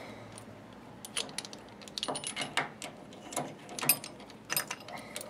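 Light metallic clicks and clinks as a small machine vise holding a brass connecting rod is handled and loosened on a milling machine table, several of them ringing briefly.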